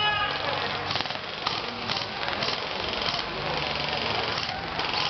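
Airsoft BB guns firing in a match: irregular sharp cracks, about two a second, over a steady hiss.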